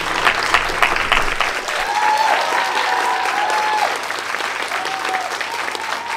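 An audience of students applauding, dense clapping throughout. A single held high note, like a whoop, rises above the clapping for about two seconds near the middle.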